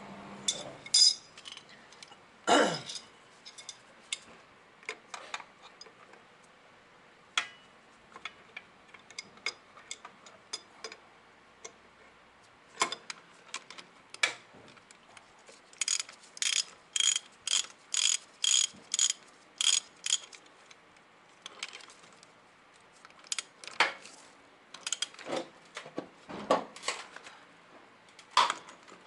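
Socket ratchet wrench clicking as it turns a nut on a scooter engine, with tools clanking against the metal. Two loud clanks come in the first few seconds, and about halfway through the ratchet clicks in an even run of about two clicks a second.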